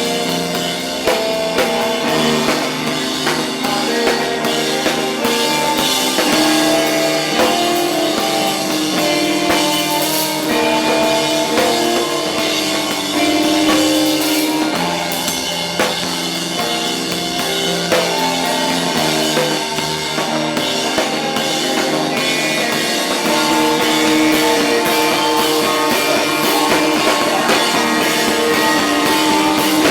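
Rock music with a drum kit and guitar, playing without a break.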